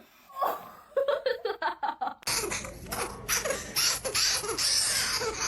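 A person laughing in quick, rhythmic bursts. About two seconds in a steady hiss sets in suddenly, and the laughter goes on over it, louder.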